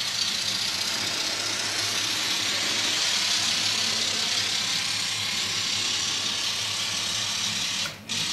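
Diesel engine sound from an N scale locomotive's sound decoder, played through its small speaker as a steady hissy rumble. It cuts out briefly near the end.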